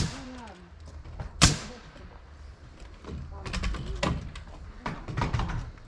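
Two sharp bangs on wooden framing, one at the very start and a louder one about a second and a half in, then lighter knocking and clattering of lumber being handled.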